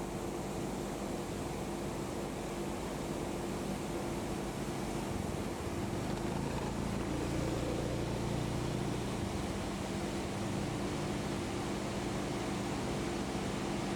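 A steady motor hum with a few held tones, its lower pitch shifting about midway before settling again.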